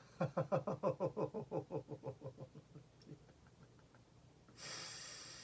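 A woman's rapid laugh, a run of quick "ha" pulses falling in pitch and fading away over about two and a half seconds. A short breathy hiss follows near the end.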